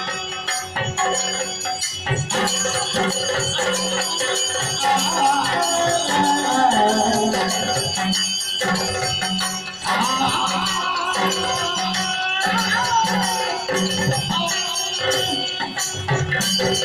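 Yakshagana stage music: a bhagavata singing a wavering melodic line over a steady drone, with drums and small hand cymbals keeping time.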